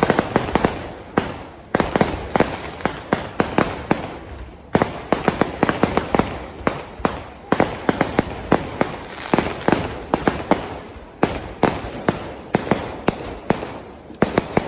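Firework explosions going off in rapid volleys, dozens of sharp bangs in quick succession with short lulls between clusters.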